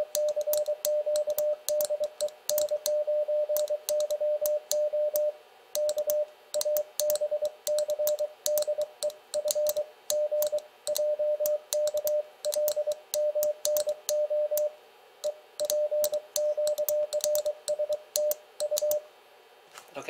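Hand-sent Morse code: a transceiver's sidetone beeping as one steady tone in dits and dahs, the alphabet at about 23 words per minute, with the brass Morse key's contacts clicking under each stroke. The sending stops about a second before the end.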